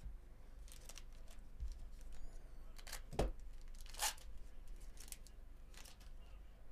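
A Bowman Chrome trading card pack being torn open: a series of sharp, crinkly rips of the wrapper, the loudest about three and four seconds in.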